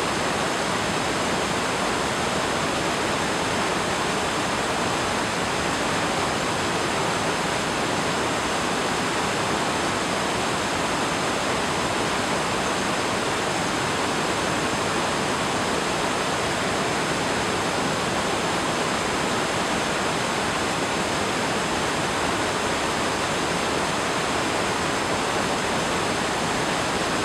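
River water rushing steadily, an even noise without breaks or changes.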